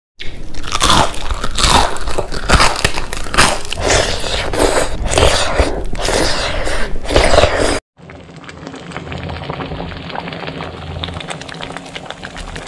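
Loud, irregular crunching and chewing of a crisp deep-fried chives pakora. About eight seconds in it cuts off suddenly, and a much quieter steady hiss with faint ticks follows.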